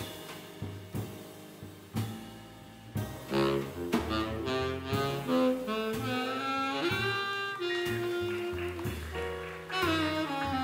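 Small swing jazz combo playing: about three seconds of sparse drum hits and double bass notes, then a tenor saxophone comes in with a melodic line over double bass, piano and drums.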